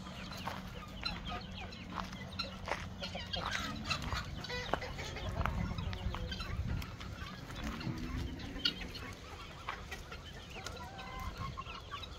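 A mixed poultry flock of chickens and young guinea fowl clucking and cheeping, in many short overlapping calls.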